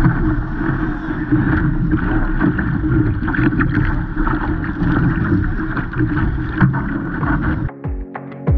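Wind buffeting the microphone and water rushing and splashing along the hull of a Laser (ILCA) sailing dinghy as it sails through chop. Near the end it cuts suddenly to music with a steady beat.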